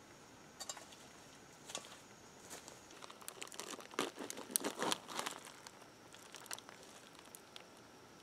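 Crinkling of a plastic bacon package as it is handled: scattered crackles that thicken into a dense crinkly burst about four to five seconds in, then thin out again.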